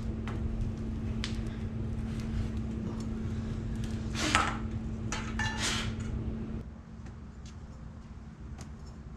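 Clinks and rattles of metal as a solar panel with roof-rack crossbars bolted to it is lifted and handled, loudest about four seconds in and again a second later, over a steady low hum. About two-thirds of the way through the hum stops and only quieter background with faint ticks remains.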